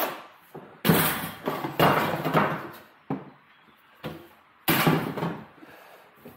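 Sheet metal duct parts being knocked and fitted together: a run of sharp metallic knocks, each with a short ring, the loudest about a second in and again near the end, with lighter taps between.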